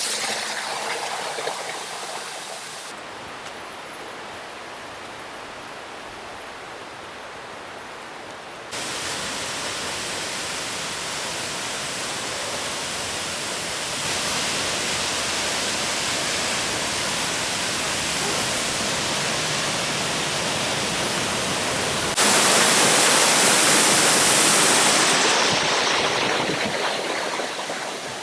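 Rushing water from a waterfall and mountain creek: a steady rush of noise that jumps in level several times between shots. It is loudest about three-quarters of the way through, then fades near the end.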